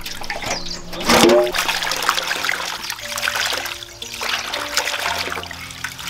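Water trickling from a tap into a metal basin and splashing as leafy greens are rinsed and swished by hand, with a louder burst about a second in. Soft background music plays throughout.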